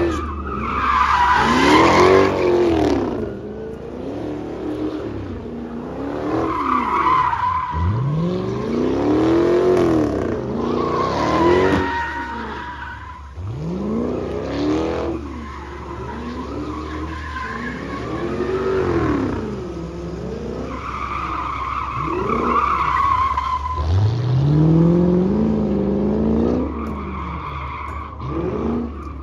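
A car doing a long burnout: its engine is revved up and down over and over, every two to three seconds, while the spinning rear tires squeal.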